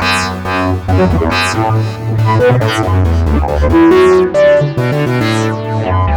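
Electronic synthesizer music: keyboard chords over a steady bass line, with repeated swishing sweeps.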